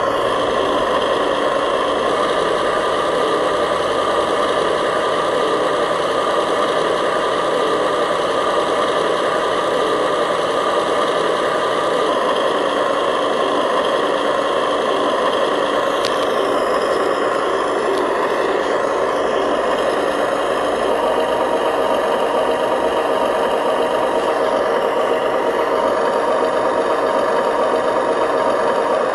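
Remote-control model truck running, with a steady mechanical whine of its motor and drivetrain.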